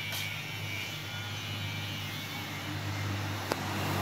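Large sawmill band saw running without cutting, a steady low hum, with a sharp click about three and a half seconds in.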